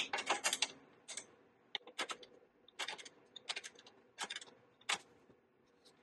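A box-end wrench working a 10 mm bolt loose: short groups of sharp metallic clicks and clinks, coming every half second to a second as the wrench is swung and reset.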